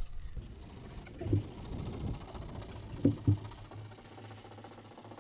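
Hand sanding around the edge of a boat's window opening with a sanding pad, a faint scratchy rasp, broken by a few dull knocks against the hull.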